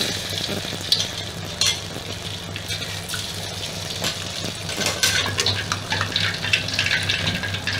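Turmeric-coated chicken wings sizzling and crackling in hot oil in a metal wok, the crackle growing denser in the second half. A couple of sharp clicks in the first two seconds come as tongs set the wings down against the wok.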